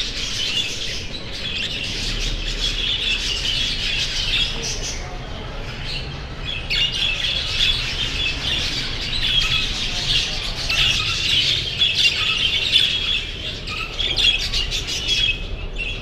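A flock of exhibition budgerigars chattering and chirping together, many short notes overlapping in a continuous aviary chorus.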